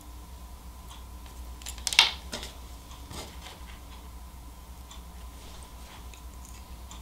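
Hand tool and wire connectors being handled on a workbench: a quick cluster of sharp clicks about two seconds in, one more a second later and a few faint ticks, over a faint steady hum.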